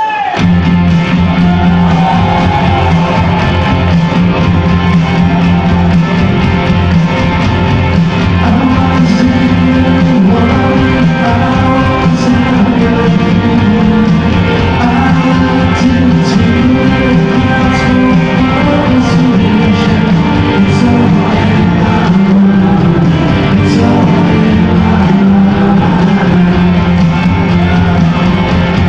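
Rock band playing live through a concert PA, heard loud from the audience: electric guitars, bass, drums and keyboard playing a steady mid-tempo song.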